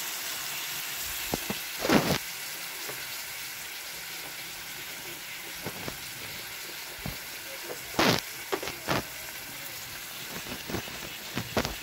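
Potato wedges frying in hot oil in a kadai, a steady sizzle with a few sharp pops and spatters.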